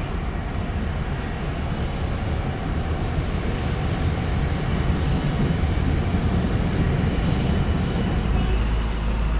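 MBTA commuter rail train passing, a steady low rumble with hiss that grows a little louder in the second half.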